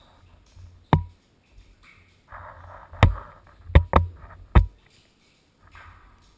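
A GoPro rig hanging on a rope knocking against the inside wall of a well: one sharp knock about a second in, then four more close together between three and five seconds, some with a short ring. A brief scraping rustle comes just before the later knocks.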